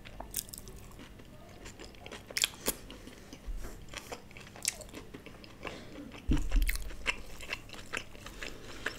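A person chewing food close to the microphone, with scattered sharp crunches and mouth clicks. A low thud comes about six seconds in.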